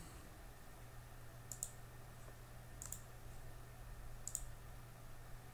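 Three faint computer mouse clicks, each a quick press-and-release, about a second and a half apart, over a steady low hum.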